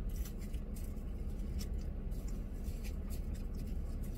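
Scattered light clicks and scrapes of a plastic spoon working a cup of shaved ice, with small eating sounds, over a steady low hum inside the car cabin.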